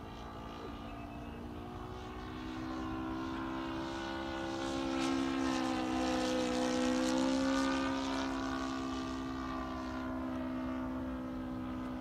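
Engine and propeller of a radio-controlled Seagull Extra 300 model aerobatic plane buzzing steadily in flight. It grows louder about halfway through as the plane passes close, the pitch sagging slightly, then fades a little.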